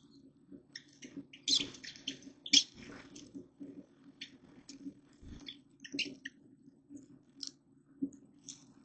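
Small animals chewing and cracking food close to the microphone: irregular crunches and sharp clicks, over a steady low hum.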